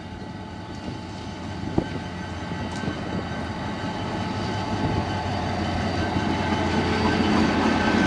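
EMD GT-22CW diesel locomotive's two-stroke engine running as it approaches slowly at the head of a passenger train, growing steadily louder as it draws near. A single sharp click about two seconds in.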